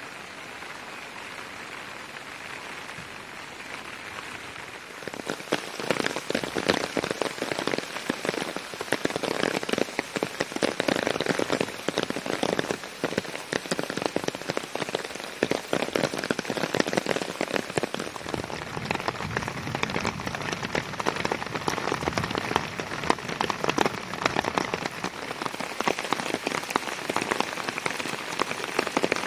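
Steady rain. For the first few seconds it is a soft, even hiss; from about five seconds in it becomes a louder, dense pattering of individual drops.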